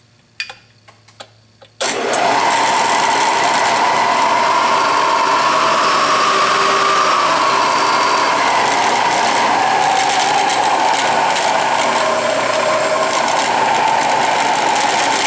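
A few light clicks, then the Rockwell Delta 15-inch variable speed drill press starts up about two seconds in and runs steadily. A whirring note rises and falls slightly in pitch as the variable-pitch pulley drive is run through its speed range.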